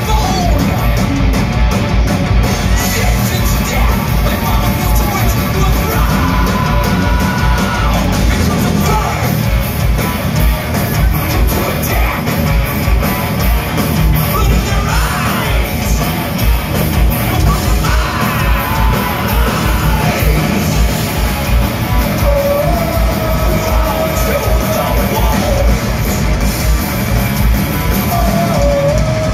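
Thrash metal band playing live at full volume: distorted electric guitars, drums and shouted vocals.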